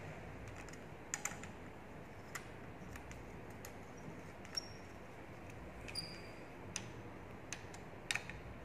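Faint, irregular small clicks and taps from hands handling a brush cutter's handlebar clamp, its bolts and the throttle cable.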